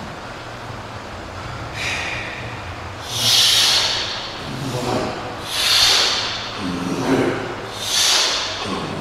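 A man breathing hard and forcefully through his teeth while squatting a 100 kg barbell for high reps. From about three seconds in, a sharp, hissing breath comes every two seconds or so, with rougher breaths between, one cycle to each rep.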